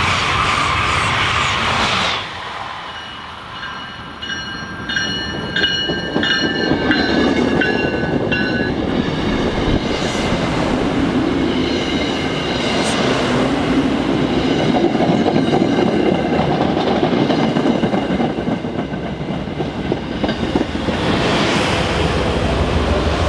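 An Amtrak train rushes past at speed, cut off abruptly about two seconds in. Then an MBTA commuter rail train rolls slowly past the platform, its wheels clattering with high metallic squealing tones. Near the end the deeper rumble of its HSP46 diesel locomotive rises as it goes by.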